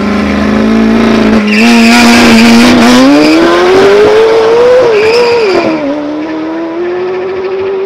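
Two supercars launching side by side off a drag-strip start line. The engines are held at steady high revs, then about a second and a half in they leave with a burst of tyre noise. The revs climb through the gears with quick dips at two upshifts, and the sound fades as the cars pull away.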